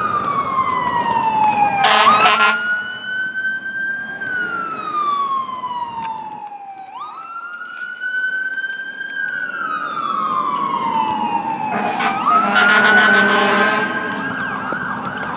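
Emergency vehicle siren wailing: a single tone that sweeps up quickly and then slides slowly down in long cycles of about five seconds, repeating three times. It is joined by louder, rougher noise about two seconds in and again from about twelve seconds in.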